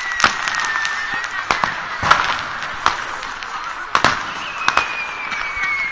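Fireworks and firecrackers going off across a town at New Year: sharp bangs and pops at irregular intervals, the loudest about two and four seconds in, over a constant crackle. A thin high whistle falls slowly in pitch near the start and again from about four and a half seconds in.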